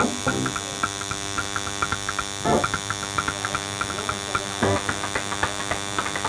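Tattoo machine buzzing steadily as it inks a fine-line tattoo into skin, a constant electric hum with a high, thin edge.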